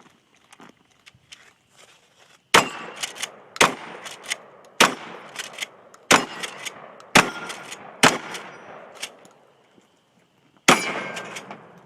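Shotgun fired seven times in a timed stage, the shots roughly a second apart, each with an echoing tail, and a pause of about two and a half seconds before the last shot; fainter clicks and knocks fall between the shots.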